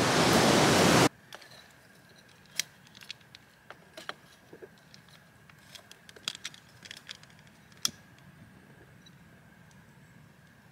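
Ocean surf breaking on a beach, cut off abruptly about a second in. It gives way to a quiet background with a faint steady hum and scattered light clicks and taps at irregular intervals.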